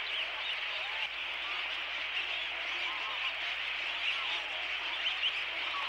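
A large mixed flock of shorebirds and other water birds calling together: a dense, continuous chatter of many overlapping high calls, with short rising-and-falling calls standing out every second or so.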